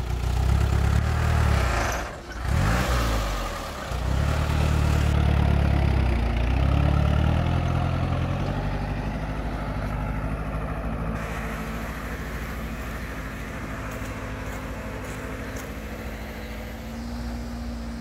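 Truck engine pulling away under the heavy load of a trailer carrying an excavator. It drops off briefly about two seconds in, revs up loud again, then fades steadily as the truck moves off into the distance.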